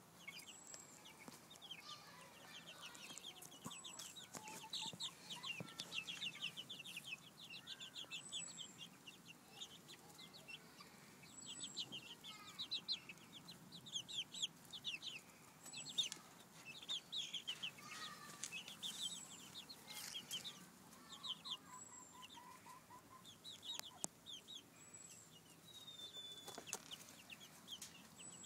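A group of young chicks peeping and cheeping, with many short, high-pitched calls coming in quick runs and overlapping, and a few clicks in between.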